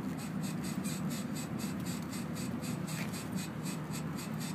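A Honda squeaking at its front passenger-side wheel as the car is rocked up and down by hand. The squeaks come in a quick, even rhythm of about four a second.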